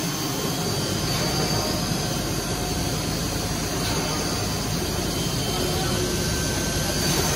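S8CNC SK12V9 automatic-tool-change CNC router spindle cutting a wood panel, with its dust extraction running, making a steady, even machine noise.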